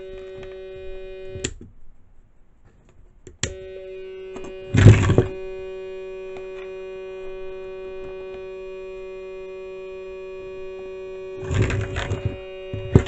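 Steady test tone rich in overtones from a signal generator, played through a Velleman K1803 mono preamplifier and its speaker. It cuts out for about two seconds with a click at each end, and crackles and thumps from plugs and cables being handled come twice, the loudest about five seconds in.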